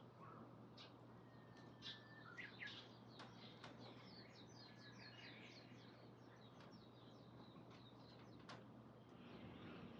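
Faint outdoor birdsong: scattered short chirps, with a quick run of short falling notes about four seconds in.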